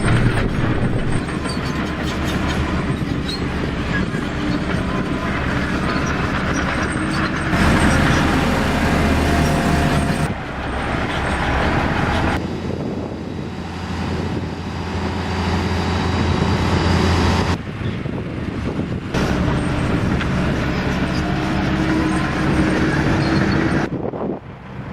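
Construction-site machinery running, a steady engine hum under broad noise, in several spliced clips that cut in and out abruptly.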